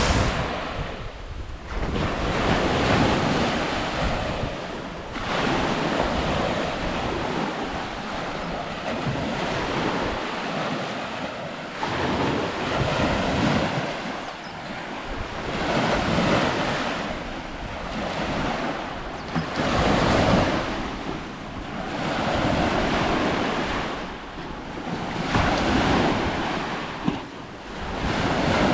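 Lake waves breaking on the shore, washing in and falling back in repeated swells every few seconds.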